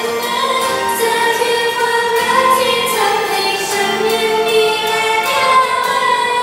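Pop song with female singing over the venue's sound system, the voices holding long notes over a steady beat.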